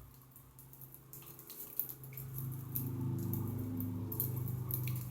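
Birds pecking at and cracking millet seed, a scatter of small sharp clicks, over a steady low hum that grows louder about two seconds in.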